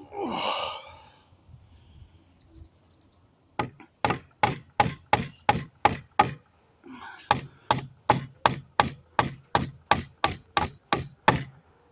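Hammer striking nails in a wooden pallet plank, knocking them out: two runs of steady blows about three a second, with a short pause between.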